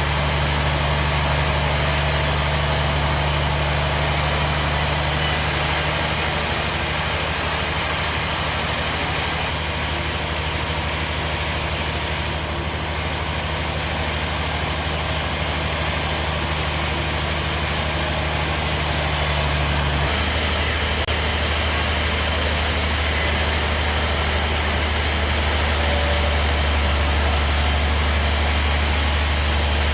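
Bandsaw sawmill running: a steady motor hum with an even hiss over it. One of its higher humming tones drops out about two-thirds of the way through, while the deeper hum carries on.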